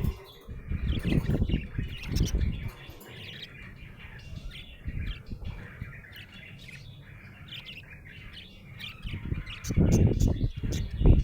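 Budgerigar chirping, many short high chirps throughout. The loudest sounds are low rumbling bursts of noise in the first couple of seconds and again near the end.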